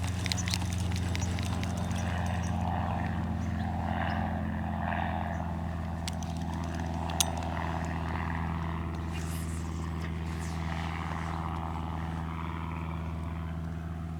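A steady low mechanical hum, like a distant engine, holding one pitch throughout, with a single sharp click about seven seconds in.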